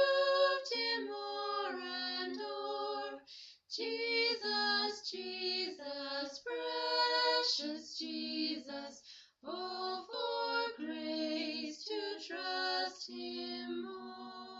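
A high singing voice carries a melody of held notes with short breaks between phrases, growing quieter near the end.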